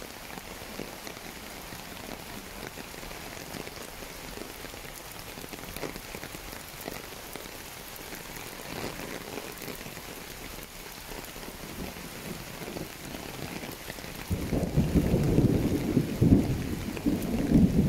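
Steady rain falling on a paved path and the leaves of the trees around it. About three-quarters of the way through a loud, low rumbling comes in and becomes the loudest sound.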